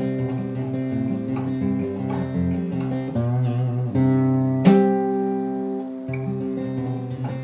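Acoustic guitar strummed and picked in a song's instrumental intro, with one harder strum about five seconds in.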